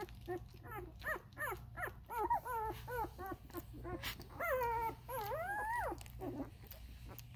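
Newborn Vizsla puppies whimpering in their sleep: a run of short squeaky whines, about two or three a second, then two longer drawn-out whines, the first falling and the second rising then falling, that stop about six seconds in.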